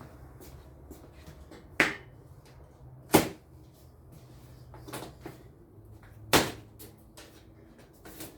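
Sharp knocks and clunks from handling the strapped-down generator box, three of them loud, about a second and a half apart and then three seconds later. A faint low hum runs underneath.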